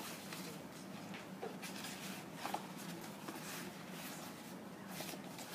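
A printed sheet of paper rustling as it is folded and creased by hand: a string of short, dry rustles over a faint steady hum.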